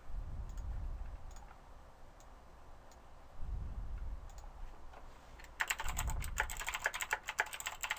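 Typing on a computer keyboard: a few single key clicks, then a fast run of typing for the last couple of seconds. Short low muffled bumps come in between.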